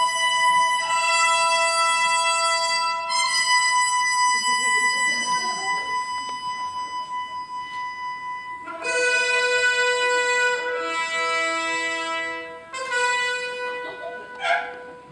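Music made of long held notes and chords: one steady tone holds throughout while the notes around it change every few seconds.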